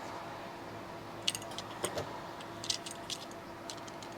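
A few small metallic clicks and scrapes of a screwdriver working on electrical hardware, over a faint steady hum.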